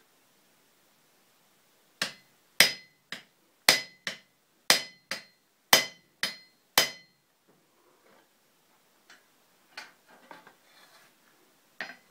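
Blacksmith's hammer striking glowing-hot steel on an anvil: about ten blows in five seconds, alternating heavy and lighter, each with a short metallic ring. Faint clatter follows, and a single clink near the end as the hammer is set down on the anvil.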